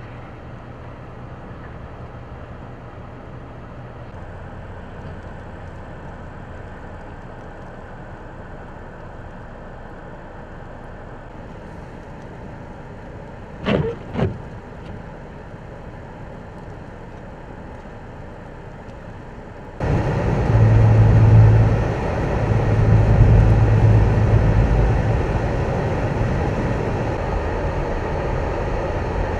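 Road vehicle traffic on a snowy road: a steady low engine hum with two short sharp sounds near the middle. About two-thirds of the way in it switches abruptly to much louder traffic noise with a deep engine rumble that swells twice.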